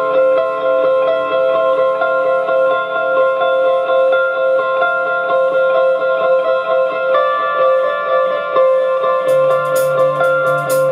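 Electric guitars playing a band intro live, repeated picked notes ringing over sustained chords. About nine seconds in, the drums enter with cymbal hits, joined by a low bass note.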